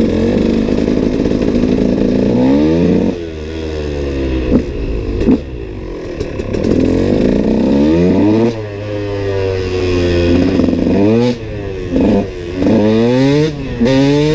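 KTM SX 125's single-cylinder two-stroke engine revving hard under acceleration, its pitch climbing and dropping back several times as it shifts up through the gears. Near the end it gives short, sharp throttle blips with the throttle closed between them.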